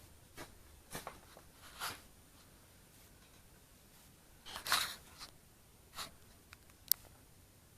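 A few brief, scattered rustles and knocks of handling, the loudest a little past the middle, with a sharp click near the end.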